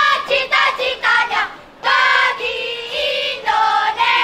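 Children's voices chanting loudly in unison from a marching drill team, in short high held notes that break off every half second or so.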